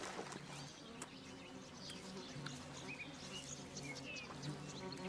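Swarm of caddis flies giving a steady droning buzz, with short, high bird chirps scattered over it.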